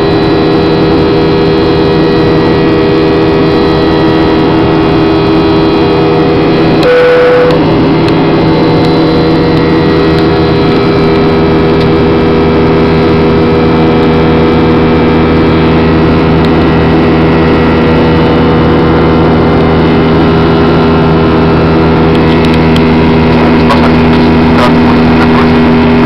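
Jet airliner's engines heard inside the cabin during the climb after takeoff: a loud, steady drone with several steady tones running through it. A brief tone sounds about seven seconds in.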